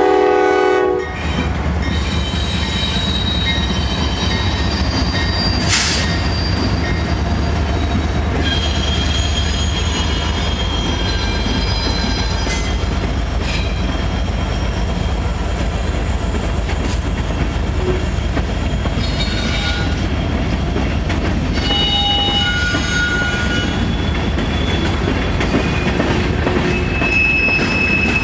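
A freight train's locomotive horn sounds a chord that cuts off about a second in. The train then rolls past with a steady low rumble, and the wheels squeal in brief high tones now and then.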